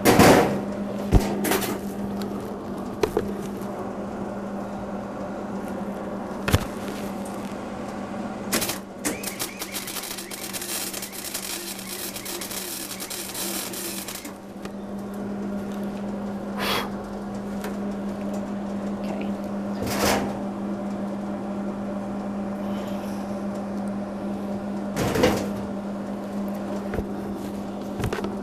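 Hobart wire-feed (MIG) welder arc crackling for about five seconds in the middle, then a few short bursts of arc later on, over a steady low hum.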